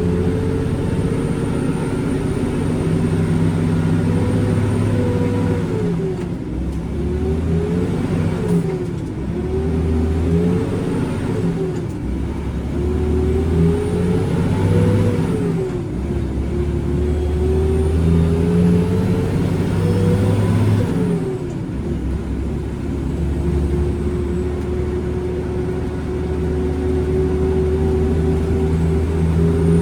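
Diesel engine of a loaded concrete mixer truck accelerating through the gears: the engine pitch climbs and then drops with each of about five gear changes, then settles into a long, steady pull near the end.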